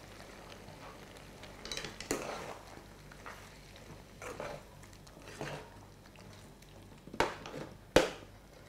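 Large metal spoon stirring thick ground green curry paste into chicken and brinjal in a metal pot, with soft scrapes against the pot. Near the end come two sharp metal clinks on the pot, a little under a second apart.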